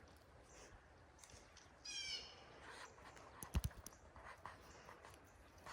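A bird gives one short call about two seconds in. A little later comes a quick cluster of knocks, the loudest sound here. Otherwise it is quiet.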